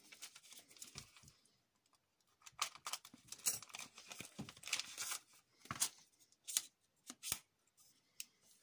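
Cardboard box and plastic wrapping of a telescopic selfie-stick reach pole being opened by hand: tearing and crinkling rustles, then a few separate sharp clicks near the end as the pole is handled.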